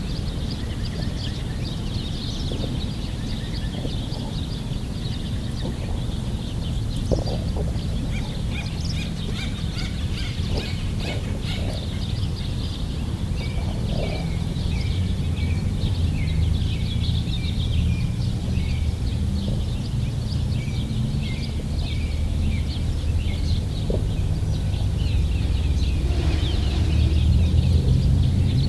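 Many small birds chirping and twittering, with a run of short repeated notes through the middle, over a steady low rumble that grows louder toward the end.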